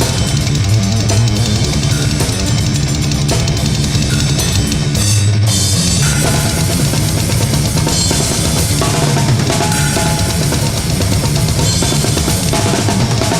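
Death-doom metal song: a drum kit with bass drum, snare and cymbals plays over a dense, loud low-pitched backing, the texture shifting briefly about five seconds in.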